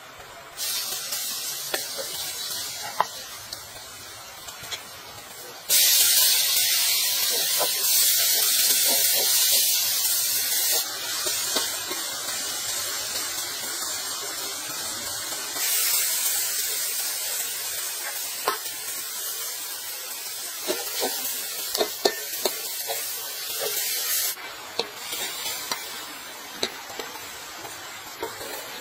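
Food sizzling in hot oil in a metal wok, with occasional clicks from stirring. The sizzle jumps up sharply about six seconds in, drops back, then swells again midway before easing near the end.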